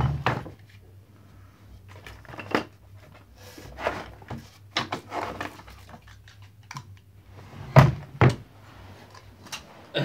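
Scattered knocks, taps and thuds of small objects being handled while someone rummages for a guitar tuner. The two loudest thuds come close together about eight seconds in.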